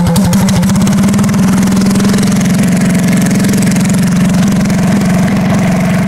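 Predator 212 single-cylinder four-stroke engine idling with the choke just turned off. It settles into a steady, even idle about a second in.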